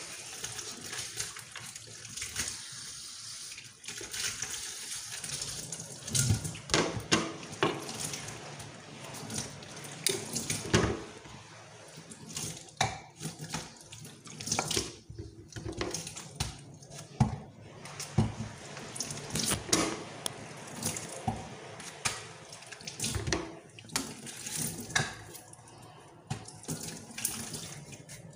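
Kitchen tap running into a sink while vegetables are rinsed under the stream, the splashing changing as hands move through the water. Frequent short knocks and clatters are heard throughout.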